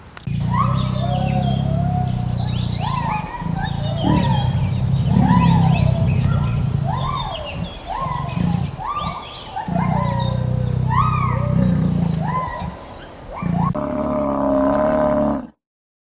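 Cheetahs chirping in short rising-and-falling calls about once a second over a loud, low, steady purr that breaks off for short gaps. Near the end the sound changes to a different call, then cuts off suddenly.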